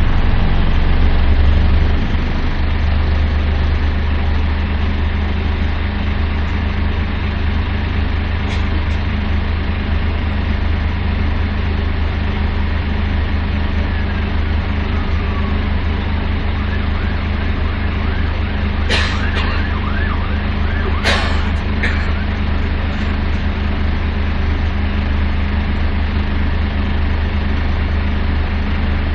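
Karosa B931 city bus's Renault MIHR six-cylinder diesel idling with a steady low drone, heard from inside the passenger cabin while the bus stands still. It drops slightly in level about two seconds in. Two short rattles about two seconds apart come around two-thirds of the way through.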